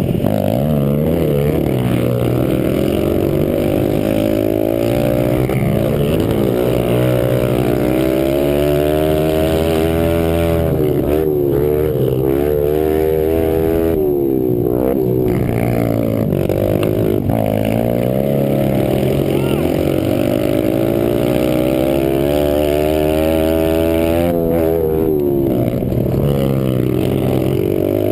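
Small pit bike engine ridden at race pace, revving up and easing off again and again. Its pitch climbs on the throttle and drops back each time the throttle closes, with a few short lulls along the way.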